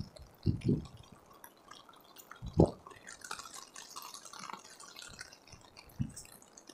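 Rain dripping and tapping on an umbrella, with a few dull thumps, the loudest a little past halfway through the first half.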